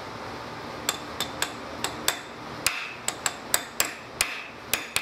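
Sharp metal-on-metal taps of a hand tool knocking at the seam of a golf cart's stuck differential cover, worked loose without a hammer. About a dozen irregular knocks begin about a second in, some with a short metallic ring.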